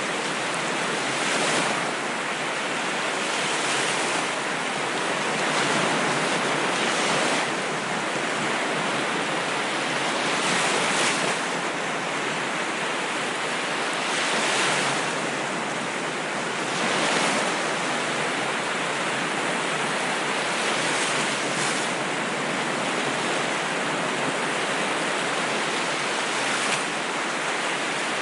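Ocean waves washing ashore: a continuous hiss of surf that swells and falls back every few seconds.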